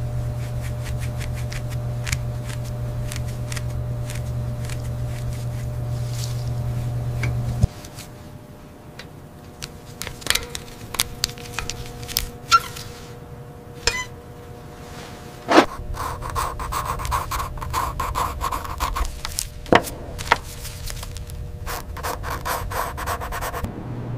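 Hand cleaning of small rusted metal parts: rubbing and light scraping with scattered small clicks. A steady low hum runs underneath for the first several seconds and cuts off abruptly about a third of the way through.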